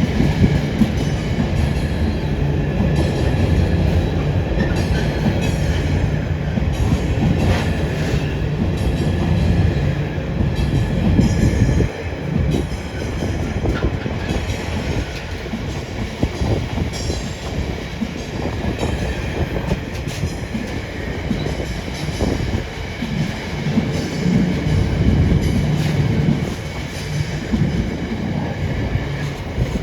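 Container wagons of a long intermodal freight train rolling past steadily, wheels rumbling and clicking over the rails, with a faint high wheel squeal at times. The rumble drops a little about twelve seconds in.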